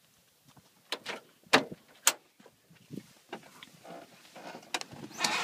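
Cessna 172 cabin door and cockpit being handled as someone climbs in: a series of sharp clicks and knocks, the loudest about a second and a half in.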